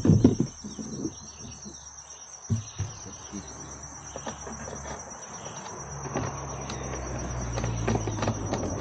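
Insects chirring in one steady, high, pulsing trill, with a few knocks of gear being handled on a plastic kayak near the start and once more about two and a half seconds in.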